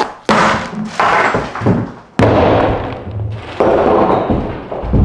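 A cleaver forced through a pumpkin on a wooden cutting board: several rough crunching stretches as the rind and flesh split, a sharp knock a little past two seconds in, and a low thud near the end.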